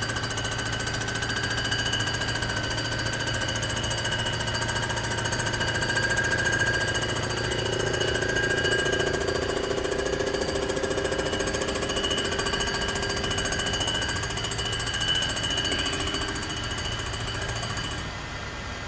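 Comec ACF200 cylinder-head surfacing machine running steadily as its cutter takes a light finishing pass, about half a thousandth, across a Rambler 327 cylinder head. The sound drops a little near the end.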